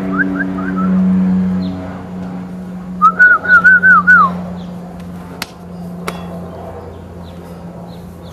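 A person whistling short rising notes to call a dog: a few at the start, then a quick run of six notes about three seconds in. A steady low hum underneath slowly fades, and two sharp clicks come a little past the middle.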